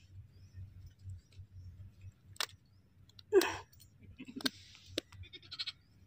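A sheep bleats once, loudly, about three and a half seconds in, with a few sharp clicks and short scrapes before and after it.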